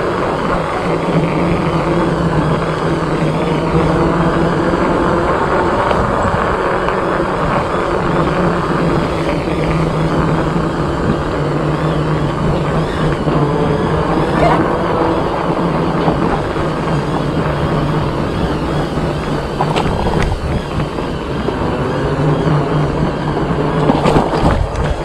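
Steady wind and road noise from riding an e-bike, with a steady low hum underneath and a few brief knocks near the end.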